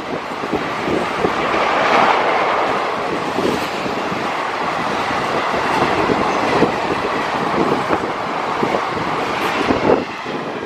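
Dadar–Bhagat Ki Kothi Express passenger train running past, its coaches' wheels knocking over the rail joints in a loud, steady rush of rolling noise.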